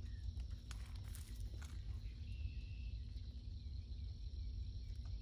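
Steady low outdoor rumble with a few faint soft taps and rustles of fingers pressing bean seeds into loose soil in a raised bed.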